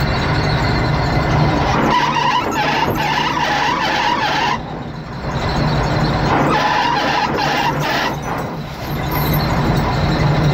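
Fishing boat's engine and net-hauling machinery running loud and steady under a low hum, as the net is winched up aboard. A high whine swells and fades twice.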